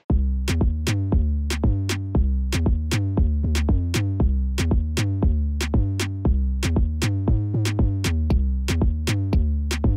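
Electronic outro music: a drum-machine beat with a steady, even pulse over a heavy synth bass.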